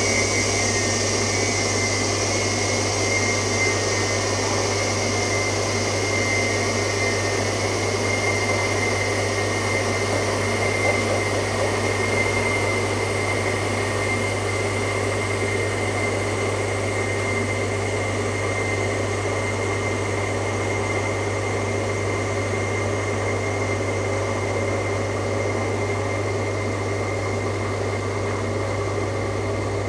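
Washing machine running, a steady mechanical drone with a constant low hum and a thin high whine held throughout.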